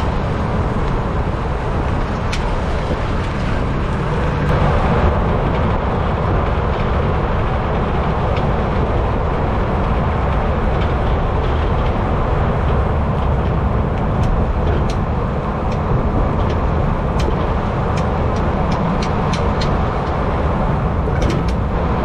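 Steady tyre and road noise from under a moving 2003 Ford F-150, with sharp intermittent clicks and rattles from the rear of the truck, scattered at first and coming more often in the second half. This is an untraced clicking rattle in the rear end, a known complaint on 1997–2003 F-150s.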